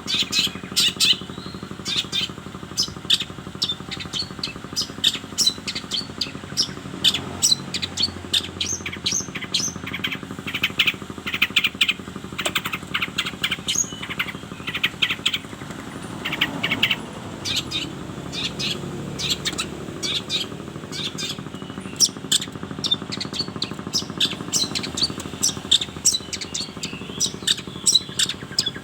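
Long-tailed shrike (cendet) singing a rapid, continuous run of short, sharp chirps and call notes, over a low steady hum.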